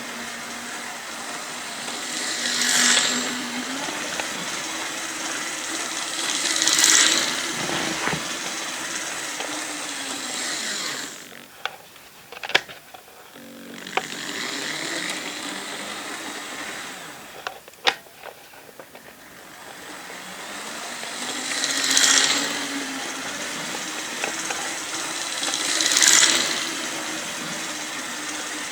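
Hornby OO gauge model locomotive running on track, its small electric motor whirring with the pitch rising and falling as the speed changes, and louder passes about four seconds apart. Twice it slows to a near stop, with a few sharp clicks, before running again.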